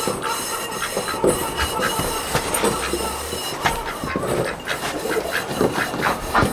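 A steel sawmill band blade being worked by hand while it is rubbed down with oil. It gives a continuous run of irregular metallic clicks and rattles, with a faint thin ringing underneath.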